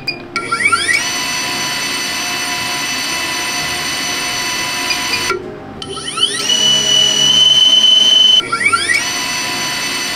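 DJI Avata drone motors arming and spinning up, three times in quick succession: each time a rising whine settles into a steady high-pitched whir. The takes alternate between aftermarket three-blade propellers and the stock five-blade propellers, and the middle take carries one especially strong steady tone.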